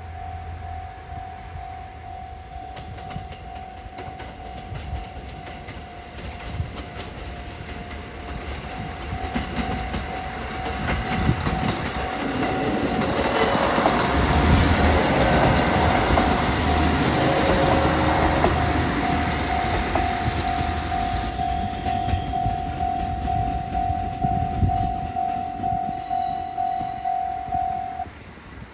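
A level-crossing warning bell ringing in a steady repeating ding while a KiHa 40 diesel railcar passes over the crossing. The railcar's engine and wheels grow louder to a peak about halfway through, then fade, and the bell stops near the end.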